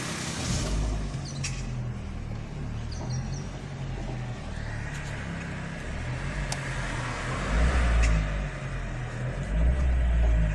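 2012 Chevrolet Sonic engine running, with a steady low rumble that swells louder twice in the second half and a few sharp clicks. It carries the knocking noise the car was brought in for, which sounded like the connecting rods but was traced to the water pump.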